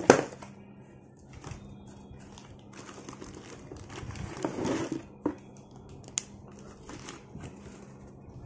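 Cardboard packaging and plastic wrapping being handled as a wrapped mixer grinder is pulled out of its box: rustling and crinkling, loudest in a burst at the start and again about four to five seconds in, with a few sharp clicks after.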